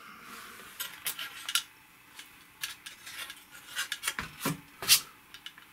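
Light plastic clicks and clatters from the TRS-80 Model 200 laptop's case parts being handled and fitted together, with the loudest knock near the end.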